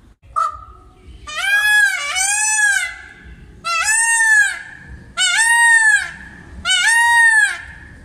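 Peacock (Indian peafowl) calling: a short note, then five loud calls, each rising and falling in pitch. The first two run together, and the last three come about one every second and a half.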